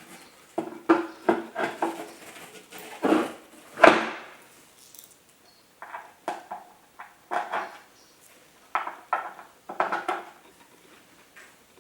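Irregular clacks and knocks of wooden climber parts and metal hardware being handled during assembly, a stability leg being fitted and screwed on with an Allen key; the loudest knock comes about four seconds in.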